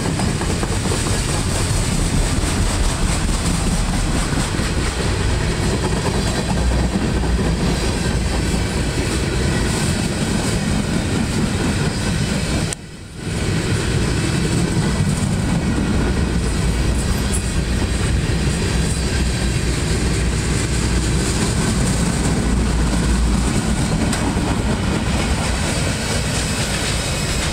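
Freight train's loaded flatcars rolling past, steel wheels running steadily on the rails, with a brief dropout in the sound about halfway through.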